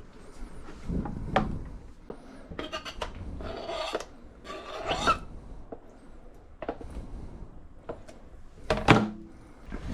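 Knife cutting and scraping raw fish fillets on a cutting board in irregular strokes, with a sharp knock about nine seconds in.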